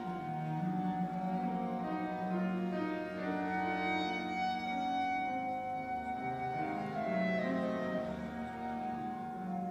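Live chamber music for clarinet, cello and piano, played in long sustained notes.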